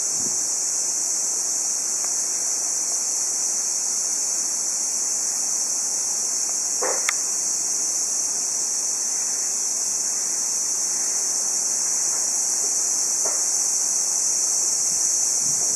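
Occasional faint creaks from a bicycle's pedal drive, which the owner suspects comes from the bottom bracket but is not sure of. The creaks come a few seconds apart over a steady, louder high-pitched hiss.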